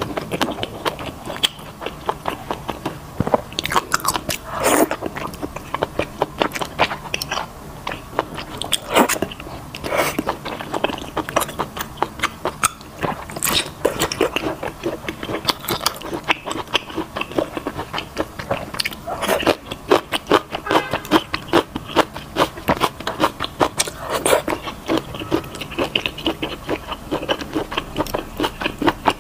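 A person chewing and biting mouthfuls of spicy malatang close to a clip-on microphone: a dense run of wet mouth clicks and smacks, with a few louder bites.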